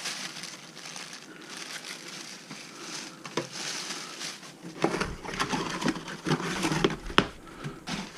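Plastic packaging bags crinkling and rustling as vacuum cleaner parts are unwrapped by hand, with a few sharp clicks. The handling gets busier and louder about five seconds in.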